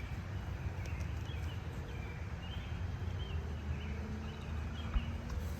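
Outdoor ambience: a steady low rumble of wind on the microphone, with faint bird chirps and a single sharp tap near the end.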